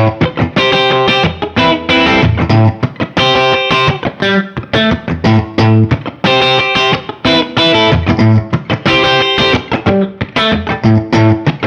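Gibson Les Paul electric guitar with PAF-style humbucker pickups playing a rhythmic chord riff. Short choppy stabs alternate with held chords in a phrase that repeats about every three seconds.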